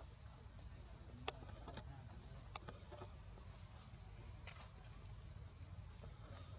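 Steady, high-pitched insect chorus in forest, with a few sharp ticks scattered through; the loudest tick comes about a second in.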